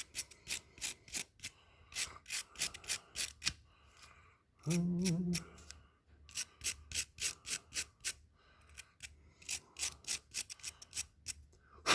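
Small wire brush scrubbing soot and carbon off a leaf blower's wire-mesh spark arrestor screen, in runs of quick scraping strokes, about three or four a second, with short breaks between runs. The clogged screen is what keeps the two-stroke engine from revving up.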